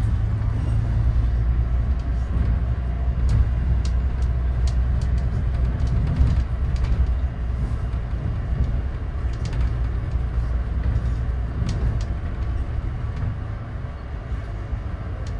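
Scania N94UD OmniDekka double-decker bus on the move, heard from inside on the upper deck: a steady low engine drone with road noise and light rattles from the body and fittings.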